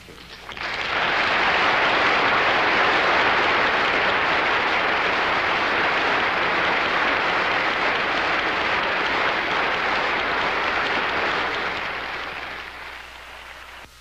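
Lecture-hall audience applauding. It swells up within the first second, holds steady, and fades away near the end.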